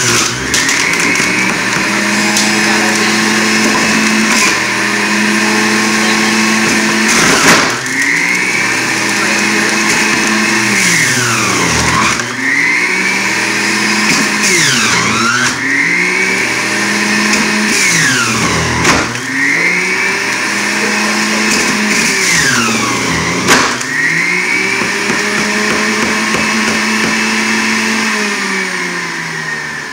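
Hamilton Beach centrifugal juicer's electric motor running at high speed. Its whine dips in pitch and climbs back several times as produce is pushed down the feed chute and loads the spinning basket. Near the end it winds down as it is switched off.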